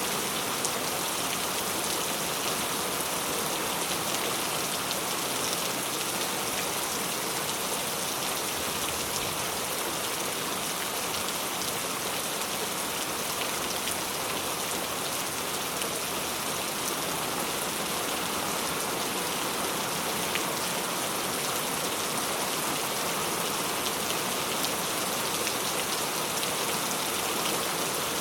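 Steady rain falling, an even hiss of drops with faint scattered drop ticks.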